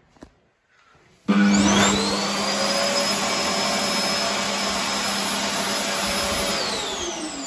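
World Dryer Airforce hand dryer starting up about a second in: its motor whine rises quickly to speed, then it runs steadily with a rushing blast of air and a low hum. Near the end the whine falls as the motor spins down after it shuts off.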